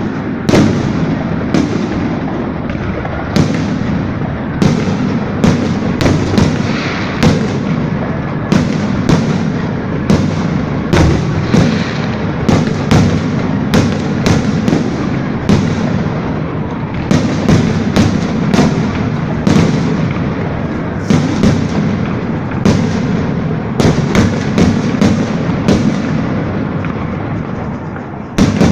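Fireworks salute: an irregular string of loud bangs from bursting shells, about one or two a second, over a continuous low rumble. The bangs ease briefly just before the end.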